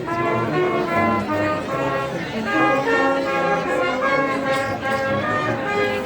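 Orchestral music with brass playing a tune, moving from note to note without a break.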